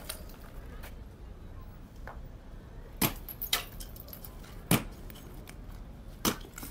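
Metal hand tool striking a concrete block border to break it up: four sharp clinking blows at uneven intervals, the first about three seconds in.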